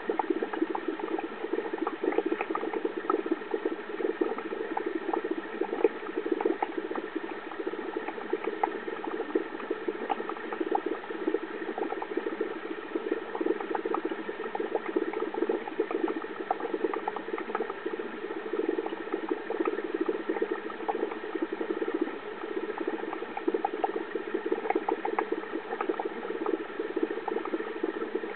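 Running aquarium equipment: a steady hum with a busy, irregular patter of small bubbling clicks.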